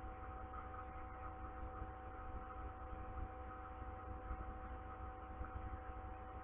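Steady low electrical hum with a few faint, even tones over a low hiss; nothing starts or stops.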